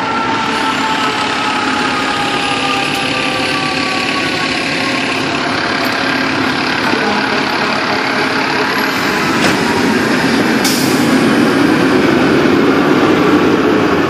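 Fire trucks' diesel engines running loudly as the apparatus pull out, with a siren's tone slowly winding down over the first several seconds and a short hiss about ten and a half seconds in.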